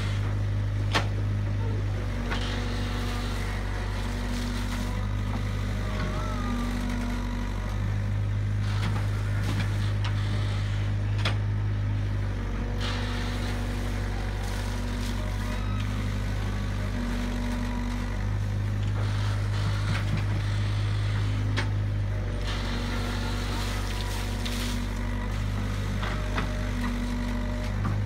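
Long-reach excavator's diesel engine running steadily while its hydraulic arm digs, the deep engine hum growing heavier for a few seconds at a time, about every ten seconds, as the load comes on. A few sharp knocks stand out above it.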